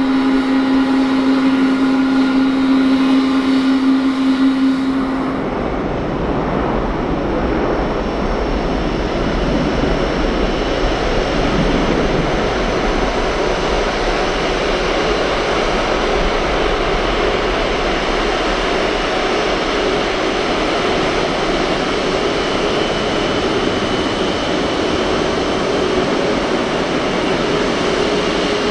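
Jet engines of an Embraer 175 climbing out after takeoff, a steady whine, which cuts off about five seconds in. Then an Airbus A350-900 taxiing, its Rolls-Royce Trent XWB engines at low taxi power: a steady rushing noise with a faint whine.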